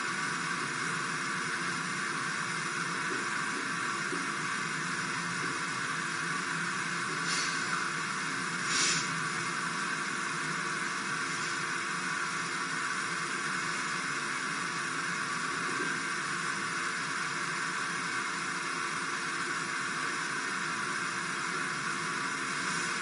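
Steady hiss of background noise, with two brief louder noises about seven and nine seconds in.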